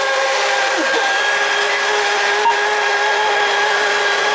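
Several radio-controlled model boats' small two-stroke engines running at high revs, heard as a steady high-pitched whine of overlapping tones. About a second in, one engine's pitch drops sharply.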